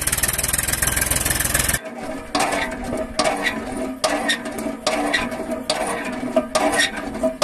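A tractor engine runs with a fast, even chugging that stops about two seconds in. Then a miniature hand pump's handle is worked up and down, giving repeated clacks a few times a second.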